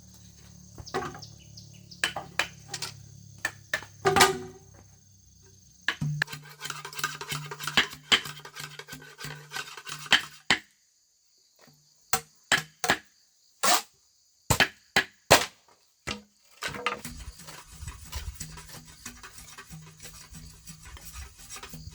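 Scattered sharp knocks and taps of hand work on bamboo, with a steady high insect whine behind them in parts. In the middle the background drops out and only a few separate knocks are heard.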